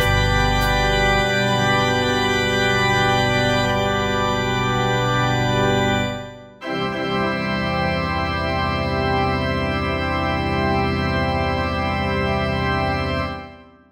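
Instrumental ending of an art-rock song: held organ chords. About six seconds in the sound dips away briefly and a new held chord swells back, then it fades out near the end.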